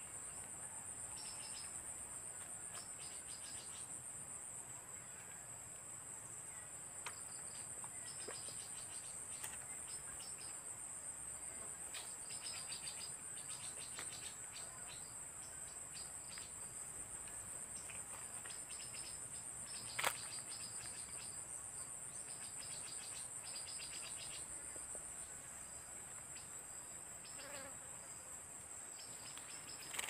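Crickets trilling in a steady, high-pitched drone, with repeated bursts of quicker chirping on a lower note. One sharp click about two-thirds of the way through stands out as the loudest sound.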